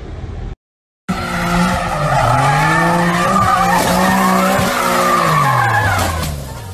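A car drifting: the engine is held at high revs that waver up and down while the tyres squeal, and the revs fall away near the end. It starts abruptly after a brief silence about a second in.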